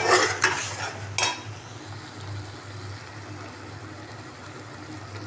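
Chicken curry simmering in an aluminium pot, a steady sizzling bubble over a low hum, while a metal spoon stirs it and knocks against the pot twice in the first second or so.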